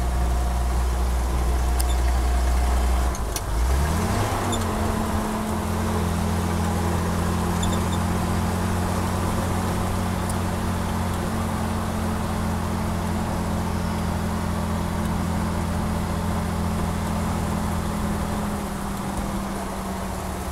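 The 251 cubic inch flathead six of a 1951 Chrysler M37CDN military truck, heard from inside the cab while driving on a gravel road. The engine note drops briefly about three seconds in, then climbs and holds at a steady, higher pitch.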